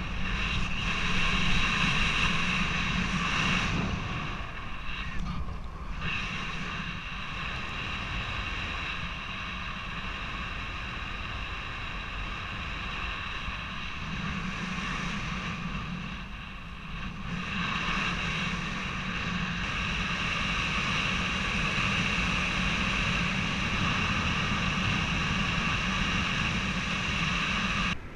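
Wind rushing over the camera microphone while a paraglider is in flight, a steady rush with a low rumble that eases off briefly twice.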